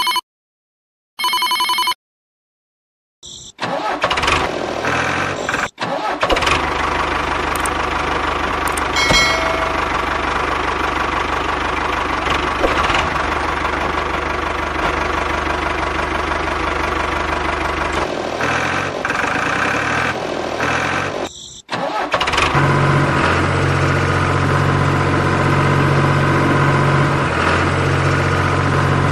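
Mini tractor engine starting about three seconds in and running steadily, the sound turning deeper and heavier after a brief break about three-quarters of the way through. A few short electronic ringtone beeps come at the very start.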